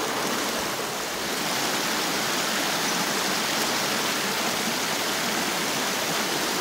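Small rocky brook running steadily, water rippling and trickling over stones; the brook is running higher than usual after rain.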